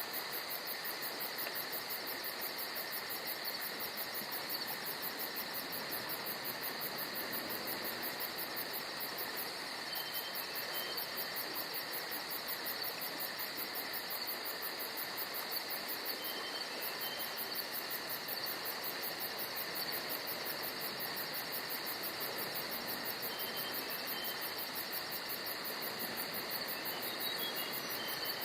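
Steady chorus of insects chirring in a forest, with a fast even pulsing high whir over it. A bird gives a few short high chirps about a third of the way in, in the middle, and near the end.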